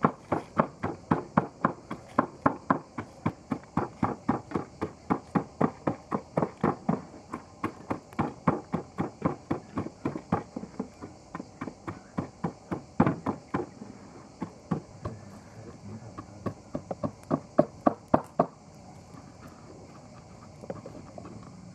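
Knife chopping on a wooden cutting board, a steady run of sharp knocks at about three to four strokes a second that stops about eighteen seconds in.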